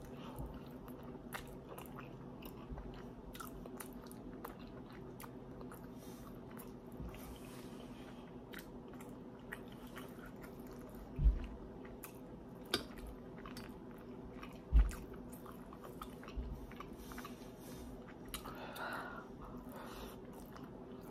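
A person chewing and biting fried General Tso chicken and rice, with soft crunching and mouth clicks over a steady low hum. Two dull low thumps come near the middle, about three and a half seconds apart.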